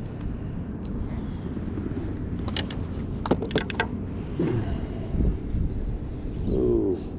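Wind buffeting the microphone as a steady low rumble, with a quick run of sharp clicks and rattles about halfway through and a short wavering tone near the end.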